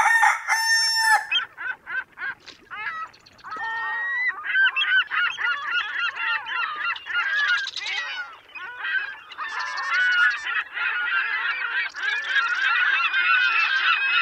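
A rooster crows once, then a flock of geese honks: many short, overlapping calls that swell and fade.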